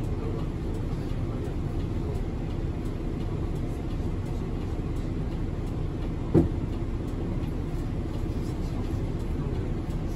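Hiroden city bus under way, heard from inside the cabin: a steady low rumble of engine and road noise. A single short thump about six and a half seconds in is the loudest moment.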